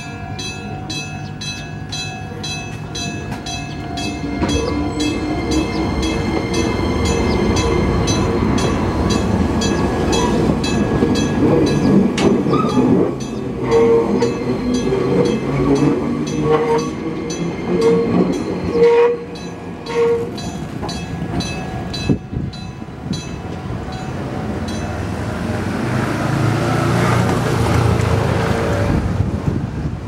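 An old analogue struck-bell level-crossing warning bell rings in a steady beat of metallic strikes and stops about two-thirds of the way through. Meanwhile an Enoden electric train rumbles past over the street-level crossing, its wheels squealing in short shrill tones on the curve. Near the end a rushing noise swells and fades.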